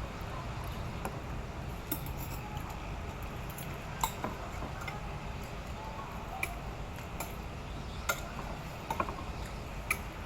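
Light clinks and clicks of tableware on a plate, single sharp taps every second or two, over a steady low background rumble.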